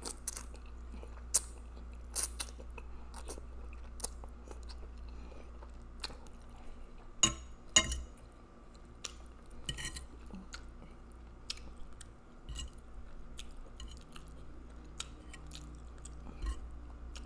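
Close-miked eating of spaghetti with meat sauce: wet chewing and slurping, with irregular mouth clicks and smacks. A few clicks stand out louder, two of them close together past the middle.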